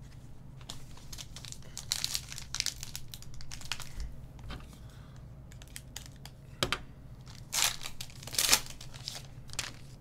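Foil wrapper of a Panini Select basketball card pack crinkling and tearing in the hands as it is handled and slit open with a box cutter. It gives irregular crackles, with two louder crinkles in the last few seconds.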